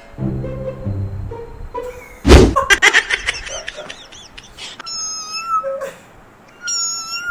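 A pet animal making high-pitched calls: a loud thump about two seconds in, then a quick run of short squeaky calls, and two held high cries, one in the middle and one near the end.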